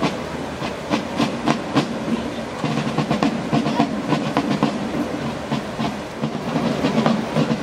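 Irregular clattering and rattling over a dense murmur of crowd noise.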